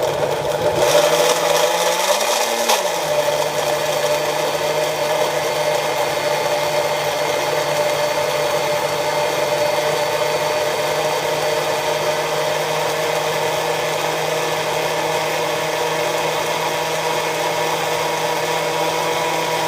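Small 240-watt personal blender running loud and steady as it blends partially thawed frozen mango chunks in coconut milk. It is rougher for the first few seconds while the chunks break up, then settles to an even pitch and cuts off suddenly at the end.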